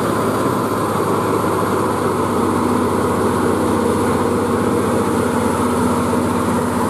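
Diesel engine of a loaded UD Quester truck pulling steadily under heavy load as it crawls up a steep hill. It holds one even engine note with no change in pitch.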